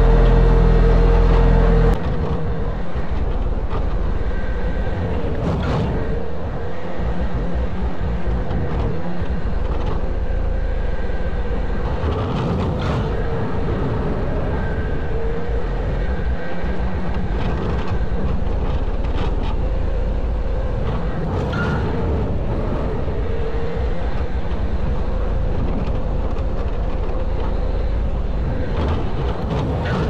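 Engine of an old vibratory roller running as it drives over loose dirt fill. About two seconds in, the steady drone changes to a rougher rumble that carries on evenly.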